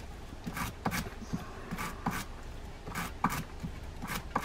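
Stiff bristle brush scrubbing dirt and debris out from between the teeth of a Penn Long Beach reel gear, in short scratchy strokes about one or two a second.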